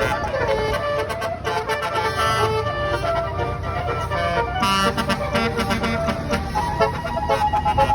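Tour bus's basuri musical air horn (telolet horn) playing a tune, its notes changing in quick steps, over a low rumble.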